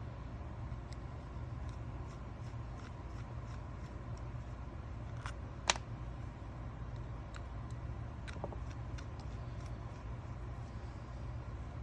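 Faint clicks and taps of a screwdriver and small metal parts as the cover screws of a Tillotson HL87A carburetor are taken out, with one sharper click a little before halfway, over a steady low hum.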